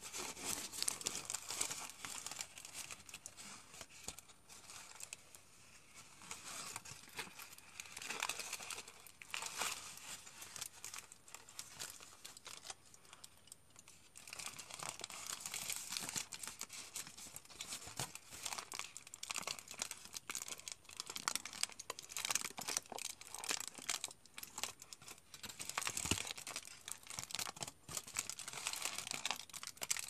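Aluminium foil being crumpled and crinkled by hand, an irregular crackling that comes and goes in flurries, with brief quieter stretches.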